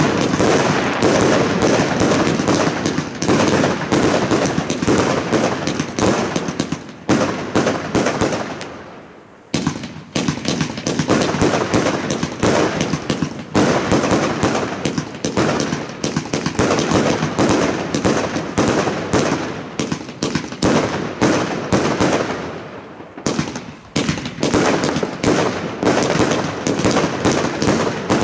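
100-shot 1.2-inch compound fireworks cake firing in rapid succession, a dense stream of tube launches and aerial bursts. It thins out to a brief lull about eight seconds in and dips again briefly at around twenty-three seconds.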